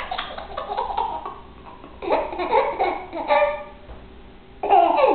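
A baby laughing hard in several separate bursts.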